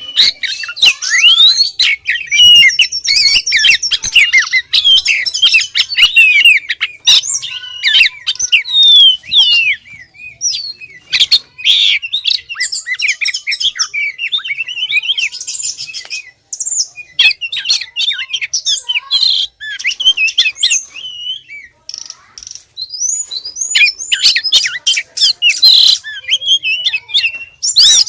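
Female oriental magpie-robin (kacer) singing a fast, varied run of chirps, whistles and rapid repeated notes, in bursts broken by short pauses. It is the female's call to a male, typical of a hen in breeding condition.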